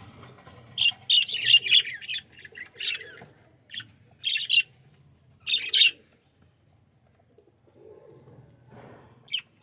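Pet budgerigars chirping and squawking in quick, sharp calls for the first six seconds or so, then falling mostly quiet.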